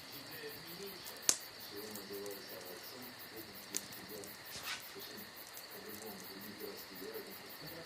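Campfire crackling with three sharp pops, the loudest about a second in, over a steady high chirring of crickets. Faint low voices murmur underneath.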